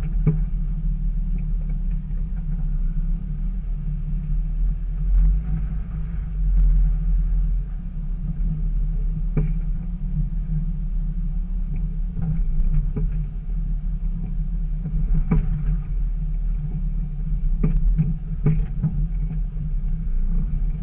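Jeep Wrangler TJ engine running at low speed, a steady low rumble, with a few short knocks as it crawls over rock.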